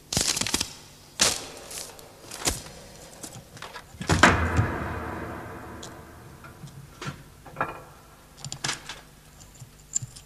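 A string of sharp knocks and thumps as actors move about a stage. The loudest comes about four seconds in and rings out for a couple of seconds, followed by fainter clicks and taps.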